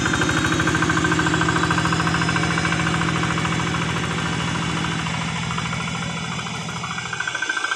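Two-wheel walking tractor's single-cylinder diesel engine chugging steadily under load while plowing a flooded rice paddy, with an even, rapid firing beat. It grows fainter over the last few seconds as the tractor moves away.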